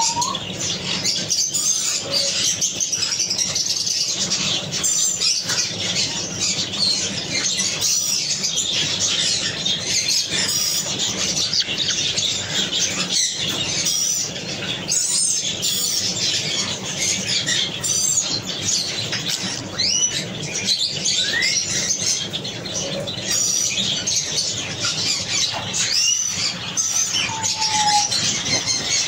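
Constant chatter of many small caged birds chirping together, with a few short rising whistles in the second half.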